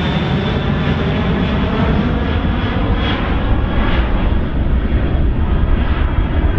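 Jet airliner taking off at high power: a loud, deep engine rumble with a thin high whine that slowly falls in pitch.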